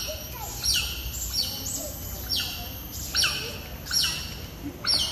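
Smooth-coated otters chirping: a run of sharp, high-pitched calls, each dropping slightly in pitch, repeated about once every three-quarters of a second.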